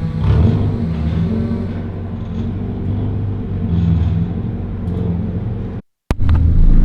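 Nissan 240SX engine running at low revs with a steady rumble. It cuts out abruptly for a fraction of a second near the end, then resumes.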